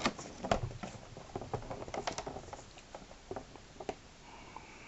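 Clear plastic blister packaging crinkling and clicking as it is handled and turned over, an irregular scatter of sharp crackles that thins out near the end.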